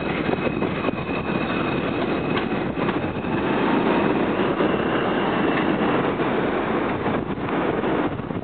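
R142 subway train pulling out and moving away along the track: a steady rumble of steel wheels on rail with a few clicks, easing slightly near the end.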